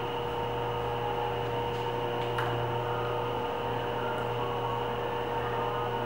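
Steady room hum: a low drone with a thin, higher steady tone over a light hiss, like an electrical or fan hum, with a faint tick or two about two seconds in.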